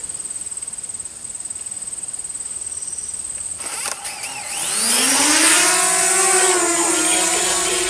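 Small quadcopter drone's motors spinning up for takeoff about four seconds in: a whine that rises in pitch, then settles into a steady hovering buzz.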